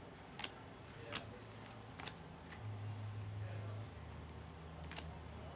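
A few faint, sharp clicks at irregular intervals as glossy trading cards are flicked through by hand, each card slid off the front of the stack, over a low steady hum.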